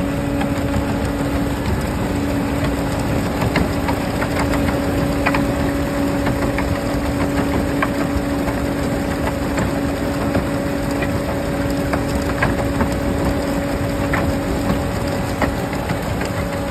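Concrete mixer truck running steadily, a constant engine hum, while wet concrete slides down its chute, with scattered light knocks.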